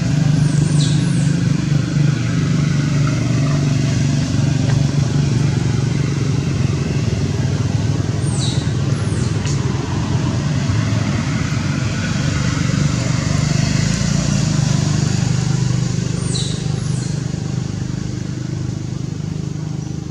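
A steady low engine hum, with three brief groups of high, falling squeaks: near the start, about eight seconds in and about sixteen seconds in.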